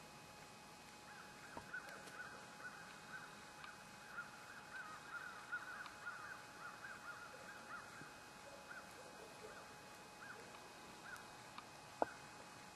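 Faint, distant flock of birds calling, many short calls overlapping, starting about a second in and thinning out after about eight seconds. A single sharp click near the end.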